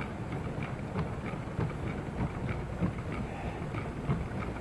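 Pedal boat under way: its paddle wheel churning the water with small splashes and knocks about twice a second, under a low rumble of wind on the microphone.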